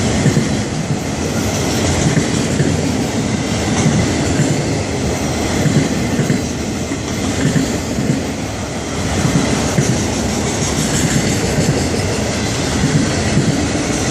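Freight cars of a Florida East Coast Railway train rolling steadily past, their steel wheels rumbling and clattering on the rails.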